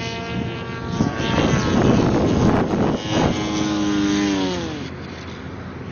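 Small electric RC airplane's motor and propeller whining at a steady pitch under a rushing noise. About four and a half seconds in, the pitch falls away as the motor spins down.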